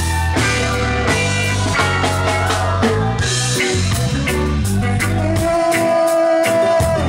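Live reggae band playing: drum kit and bass with guitar. Near the end the bass drops out under a long held note.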